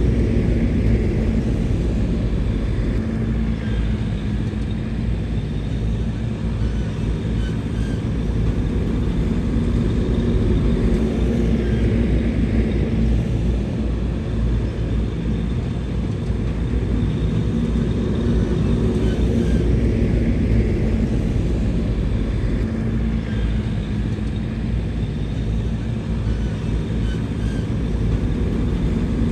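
Bulldozer's heavy diesel engine running steadily with a deep rumble and a constant hum of engine tones, its loudness swelling and easing slightly every several seconds as the machine works.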